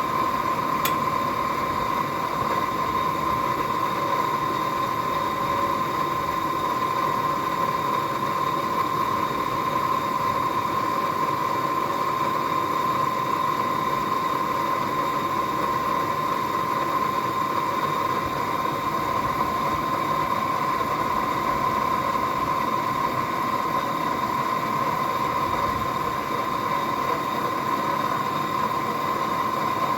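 A blacksmith's forge running steadily: an even rushing noise with a constant whine underneath.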